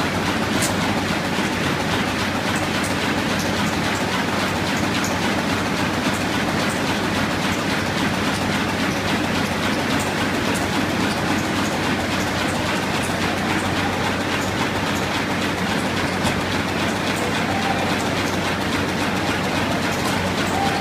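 Web offset printing press and its web stacker running steadily: a continuous mechanical clatter over a low hum.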